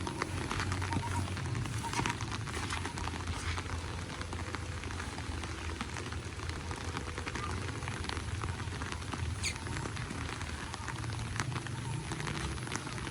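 Rain pattering steadily, a dense run of irregular drops with a low rumble underneath.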